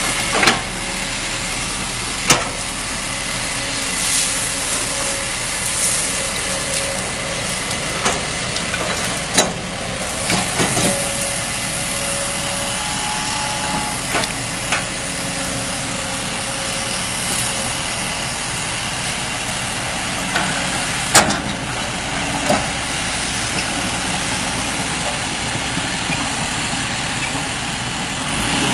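Excavator engine running steadily, with several sharp knocks scattered through it.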